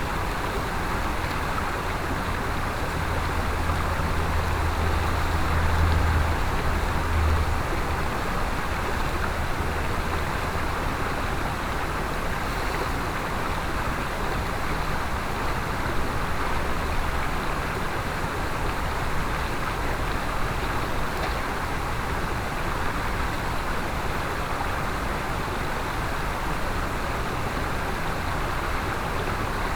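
Mountain stream water rushing steadily over rocks. A low rumble swells for several seconds a few seconds in, then fades.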